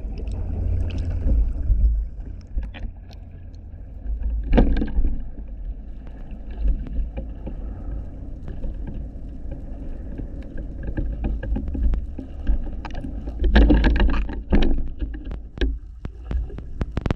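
Muffled underwater rumble of water rushing past a camera being lowered on a fishing line, with scattered knocks and clicks. It swells briefly about four and a half seconds in and again near the end.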